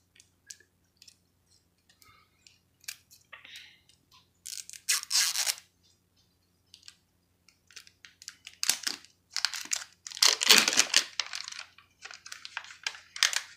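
The plastic outer wrapping of a LOL Surprise ball being peeled and torn off by hand, crinkling with scattered small clicks. It gets louder in two spells of tearing, one about five seconds in and a longer one around nine to eleven seconds in.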